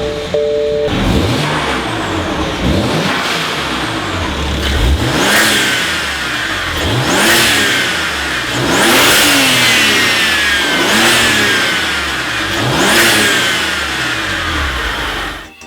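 Turbocharged BMW engine revved in repeated throttle blips, about one every two seconds. Each time the throttle shuts, the Turbosmart Kompact blow-off valve vents with a hissing whoosh as the revs fall and the turbo whine winds down.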